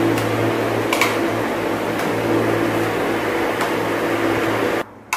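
A steady mechanical hum, a low drone with a higher tone over it, that cuts off suddenly near the end. A couple of faint clicks of a spoon stirring in a bowl sound over it.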